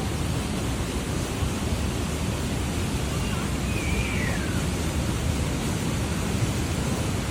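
Steady rushing noise of the Manavgat waterfall's falling water. About halfway through, a faint high call falls in pitch.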